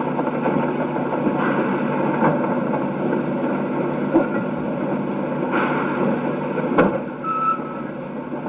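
A narrow-gauge steam train's carriages rolling slowly past, a steady rumbling noise with a few louder surges and a sharp knock about seven seconds in.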